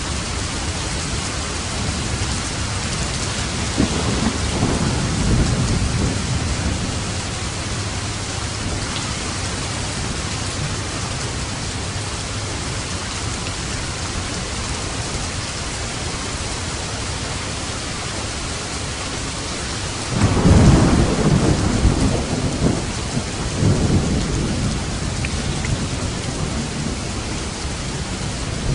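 Steady heavy rain on a roof, with thunder: a rolling rumble about 4 seconds in, then a louder crack about 20 seconds in that rumbles on in waves for several seconds.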